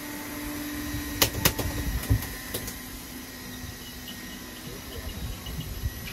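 Steady low rumble and hum of a fishing boat's engine, with a few sharp clicks and knocks between about one and two and a half seconds in.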